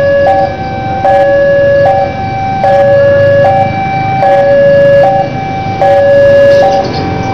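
Electronic two-tone railway crossing alarm, switching between a high and a low note about every three-quarters of a second. The low rumble of the approaching diesel locomotive runs beneath it.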